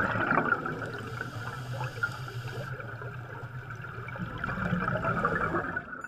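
Underwater bubbling: streams of air bubbles rising through water, a steady grainy bubbling rush that drops away sharply at the very end.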